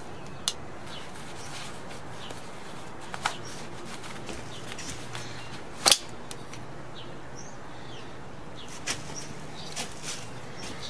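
Scattered sharp clicks of a Fox FX-590 Chiroptera folding karambit knife being handled, closed and clipped into a jeans pocket. The loudest click comes about halfway through. Faint bird chirps sound in the background.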